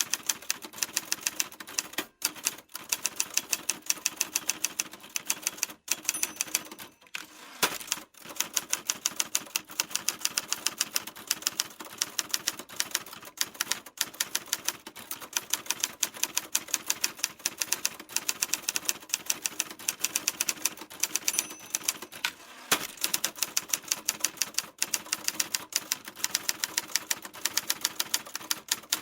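Typewriter keys clacking in fast, steady typing, about five or six strokes a second, with a few brief pauses.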